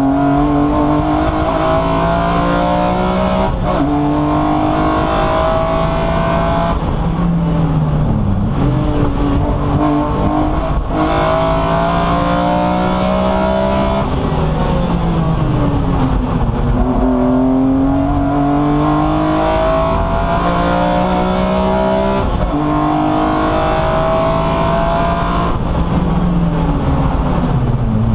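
BMW E36 M3 racing straight-six heard from inside the cabin at full racing pace, its pitch climbing steadily in each gear, then dropping sharply at upshifts every few seconds. A couple of times it falls away as the car brakes and downshifts into a corner before pulling hard again.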